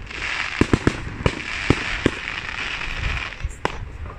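Aerial fireworks display: about seven sharp bangs of shells bursting at uneven intervals over a steady hiss that fades about three seconds in.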